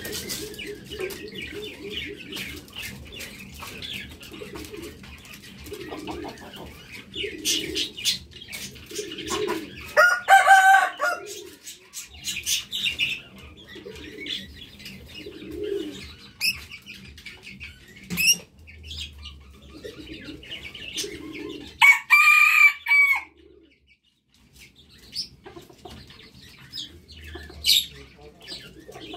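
Red junglefowl rooster crowing twice, about twelve seconds apart, each crow short and loud. Between the crows there are repeated low coos and scattered soft clucks and chirps.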